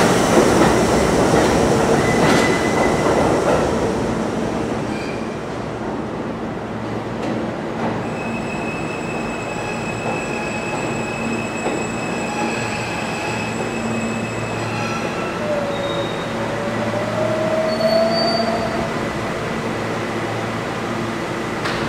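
Old stainless-steel New York subway train pulling out of the station, its rumble fading over the first few seconds. Then a steady hum with thin high-pitched wheel squeals from the tracks, and a short rising whine late on.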